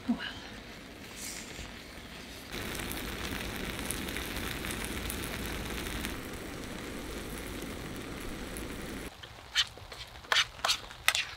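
Spam and lentils sizzling in a skillet over a Jetboil gas stove: a steady frying hiss that grows louder a couple of seconds in. About nine seconds in it gives way to a few sharp clicks of a spoon against the pan.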